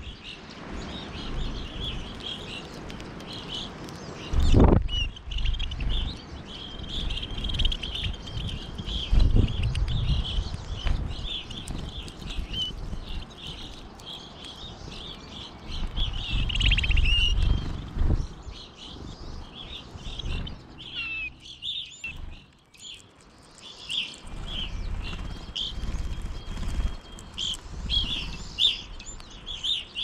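Small songbirds chirping over and over in short, high notes. Now and then there are low thumps and rumbles, with a sharp knock about four and a half seconds in.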